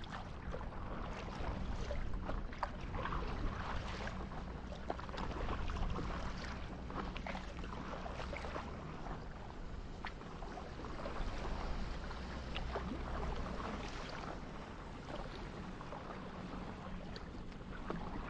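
Water lapping and splashing against a moving paddle board, with many small splashes and swells every few seconds as it is paddled along. A steady low rumble runs underneath.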